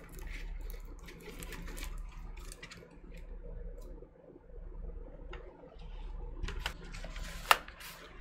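Folded paper record insert being handled and unfolded: irregular rustles and crinkles, with one sharper crackle about three-quarters of the way through, over a faint steady low hum.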